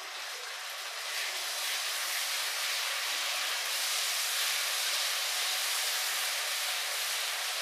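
Hot oil and tomato-spice masala sizzling steadily in a kadai, a little louder about a second in, after a splash of water was added to keep the masala from burning.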